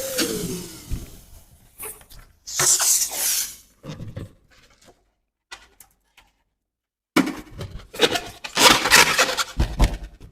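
An electric balloon pump's hum winds down, its pitch falling over the first second. Then come several bursts of rubbing and squeaky scraping as rubber balloons are handled; the longest is near the end.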